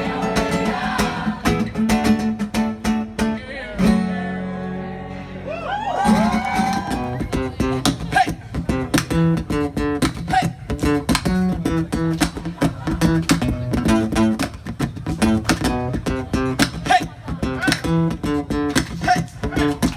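Acoustic guitar strummed in a fast, rhythmic pattern, pausing on a held chord about four seconds in before the strumming picks up again.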